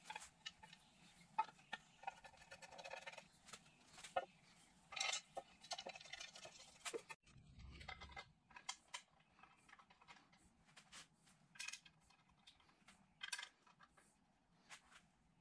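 Faint, scattered clinks and taps of metal parts being handled as a timing chain front cover is fitted by hand onto an engine block.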